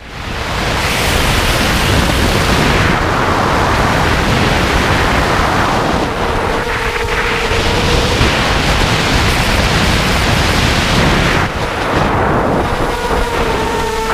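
Loud rushing wind on a small quadcopter's onboard camera microphone during fast flight, with the steady whine of its motors and propellers coming through twice, about six seconds in and again near the end.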